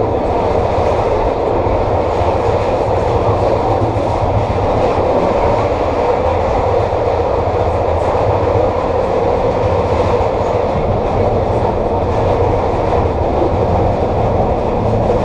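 SEPTA K-Car light rail vehicle running steadily along the track: an even, unbroken rumble of wheels and running gear.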